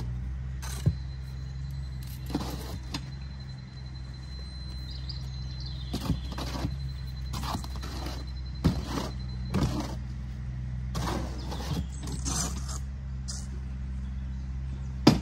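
A shovel scraping and knocking in a steel wheelbarrow at irregular intervals, over the steady low hum of an engine running.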